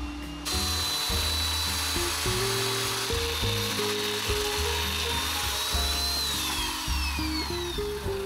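Electric hand planer running over old wooden boards. Its whine and hiss start suddenly about half a second in, and the whine falls in pitch from about six seconds in as the tool winds down. Background music plays underneath.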